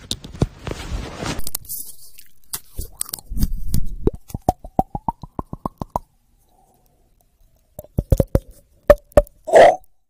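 Knuckles knocking on the top of a head, making a quick run of hollow, pitched plops that climb in pitch like a little tune, then a few more knocks and a short toned pop near the end.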